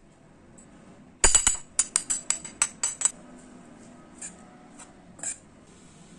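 Metal spoon clinking against a stainless steel bowl while stirring chopped spinach filling: a quick run of about eight sharp clinks starting about a second in, then three fainter taps further on.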